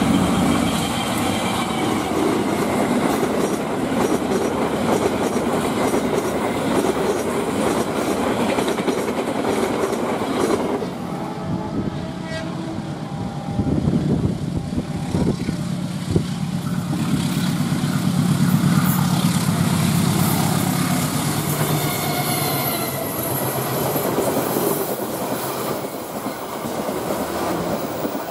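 Indonesian diesel-electric locomotive running long hood forward, with its passenger coaches rolling past and the wheels clattering over the rail joints. About eleven seconds in, a horn sounds for a couple of seconds.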